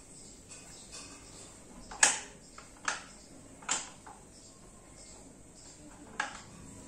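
Office swivel chair being worked by hand: four sharp clicks and knocks from its seat and mechanism. The first, about two seconds in, is the loudest, and the last comes near the end.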